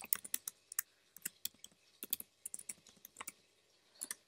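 Typing on a computer keyboard: quick runs of key clicks, pausing for most of a second before a last couple of keystrokes near the end.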